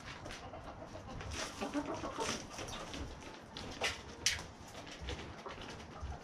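Hens clucking softly while scratching and pecking in fresh pellet bedding, with scattered clicks and rustles and a couple of sharper clicks about four seconds in.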